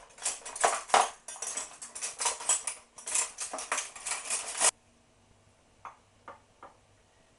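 Metal cutlery clattering and jangling in a plastic drawer tray as a hand rummages through it, stopping abruptly a little past halfway. A few faint taps follow.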